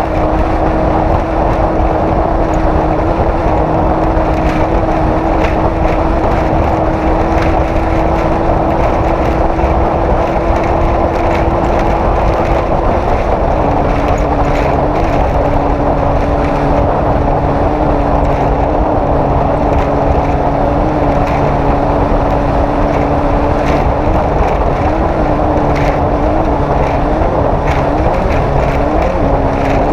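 Off-road race vehicle's engine running hard at a steady pitch, stepping down to a slightly lower steady pitch about halfway through, over a constant rush of wind and terrain noise. The engine pitch wavers and short knocks come more often toward the end.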